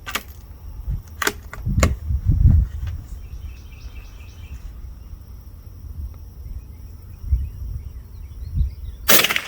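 Stevens 56C Buckhorn .22 rifle: a couple of sharp clicks early on, then a single sharp shot near the end, over a low outdoor rumble.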